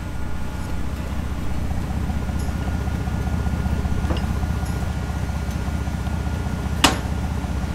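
Tracked snowcat engine idling with a steady, low pulsing rumble. A single sharp click comes near the end.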